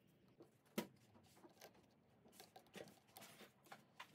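Small steel parts of an airgun being fitted by hand: a spring-loaded latch is pressed into its slot on the receiver tube. There is one sharp metallic click about a second in, then faint light clicks and handling rustle.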